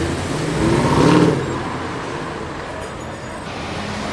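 A car engine accelerating past, its pitch rising and peaking about a second in, then fading into steady street traffic noise.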